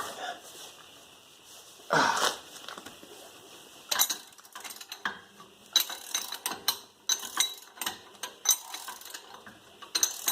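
Hand socket ratchet clicking in quick runs as it loosens bolts on a car's rear wheel hub, with one louder short scraping noise about two seconds in.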